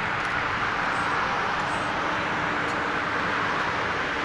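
Jet engines of a Boeing 747-400 taxiing at low thrust: a steady rushing hiss with a faint low hum underneath.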